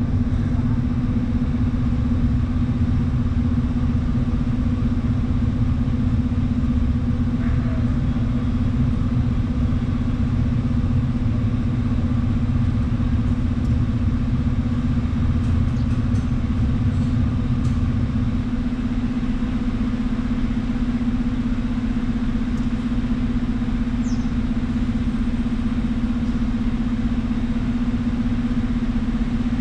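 Scania bus engine idling steadily with the bus at a standstill. It holds an even hum, and its deeper rumble eases about two-thirds of the way through.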